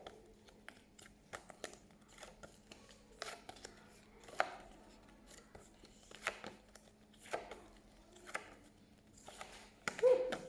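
Flashcards being handled and flipped: short, faint papery taps and rustles about once a second, over a faint steady hum.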